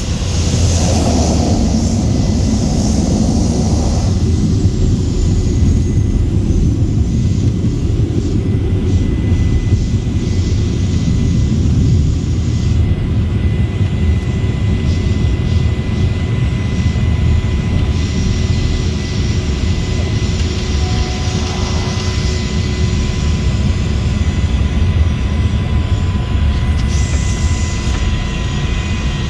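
Cabin noise of a small high-wing propeller airplane rolling along the airstrip after landing: a loud, steady engine and propeller drone with a thin steady whine over it.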